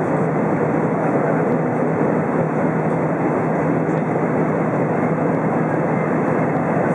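Steady cabin noise inside an Airbus A320 descending on approach: the engines and the airflow along the fuselage make a dense, even rush, heard from a window seat over the wing.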